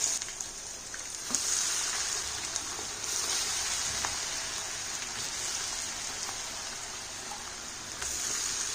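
Batter-coated chicken pakoda pieces deep-frying in hot oil, a steady crackling sizzle that swells in loudness at a few points.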